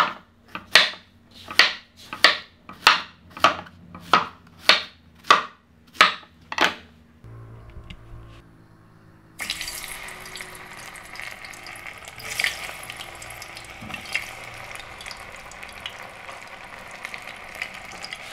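A kitchen knife chopping plantain on a wooden cutting board, about ten even strokes a little under a second apart. Then, about nine seconds in, plantain pieces start frying in hot oil in a small pot: a steady sizzle with crackles.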